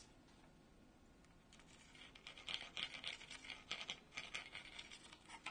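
Pencil drawing a line along a protractor's edge on a wooden seat blank: a faint, uneven scratching that starts about a second and a half in.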